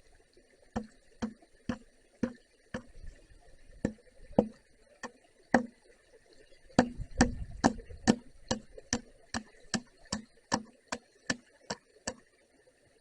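Hammer blows knocking nails down, a steady run of sharp strikes at about two a second that quicken slightly after the middle, with a cluster of heavier blows about seven seconds in.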